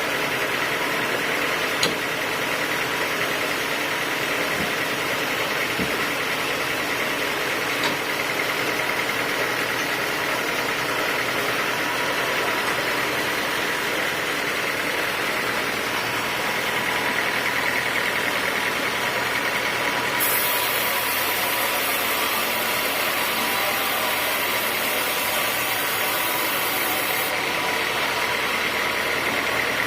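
Sawmill machinery running steadily with a constant high whine. A thin high hiss joins for several seconds about two-thirds of the way through.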